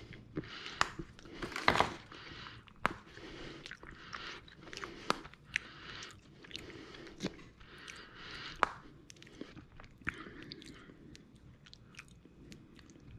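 Hershey milk chocolate bars being snapped into pieces and set into a cake pan, with rustling of the paper and foil wrappers: irregular small snaps, clicks and crinkling.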